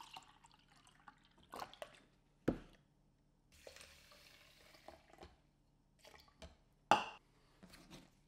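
Faint kitchen handling: a few sharp knocks and clinks of containers, with a soft pour of liquid for about a second and a half in the middle.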